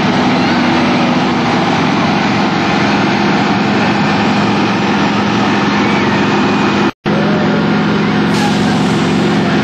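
Fire truck engines running steadily, a dense mechanical rumble with a low steady hum. The sound cuts out abruptly for an instant about seven seconds in.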